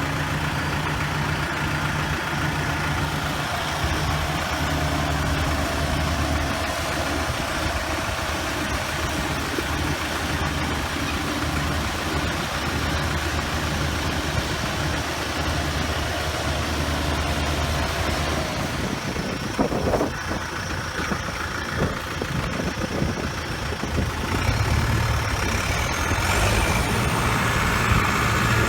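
Tractor engine running steadily. About eighteen seconds in the steady running drops away, there are a couple of knocks, and near the end another engine comes up louder with a high whine that rises and then falls.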